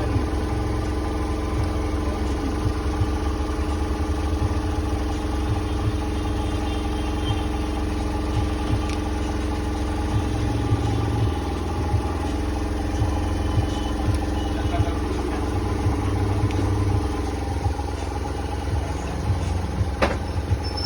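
A steady mechanical hum, like a motor or engine running, with a few faint clicks.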